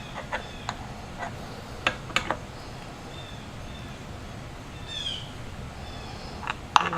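A few sharp metallic clicks and taps in the first couple of seconds as a wrench works the mirror stem tight. Small birds chirp in the background, with a quick run of falling chirps about five seconds in.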